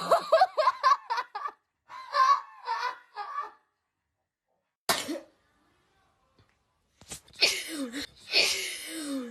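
Young women sneezing, set off by tickling the inside of the nose with a cotton swab, with short voiced exclamations and laughter around the sneezes. Bursts come in the first few seconds, a single short sharp one about halfway, and louder sneeze bursts over the last two seconds, with silent gaps between.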